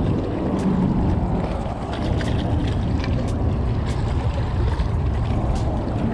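Wind rumbling on the microphone with small waves washing against shoreline rocks, a steady noise with scattered light clicks through it.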